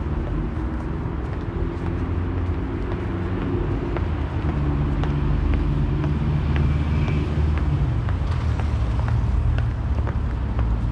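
Road traffic: motor vehicle engines running close by over a steady city rumble, getting louder about four seconds in and staying up.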